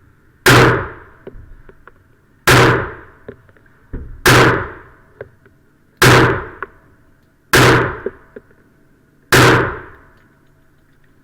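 Six .45 ACP pistol shots from a Sig Sauer 1911 Scorpion, fired one at a time about every two seconds, each loud crack dying away quickly, with small ticks between shots.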